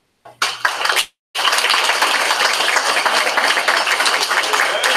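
Audience applauding: a short burst, a brief dropout just after a second in, then steady clapping.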